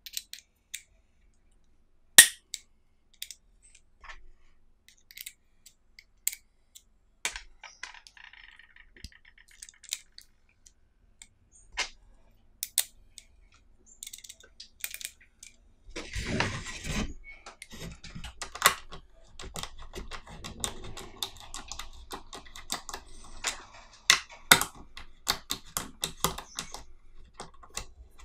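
Sharp clicks and rattles as steel bits and an extender are snapped in and out of a plastic magnetic screwdriver handle and handled against its case. There is a short scraping burst about halfway through, and the clicking grows busier in the second half.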